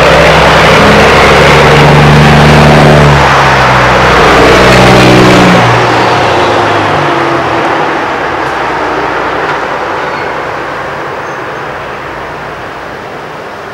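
A big rig's diesel engine running loud as the truck goes by, its steady drone with road noise then fading slowly as it moves away.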